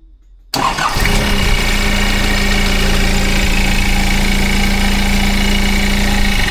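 Nissan QD32 four-cylinder diesel, newly fitted with a billet HT12 turbo, cranking briefly and catching about half a second in, then idling steadily on its first start after the turbo oil feed was fitted.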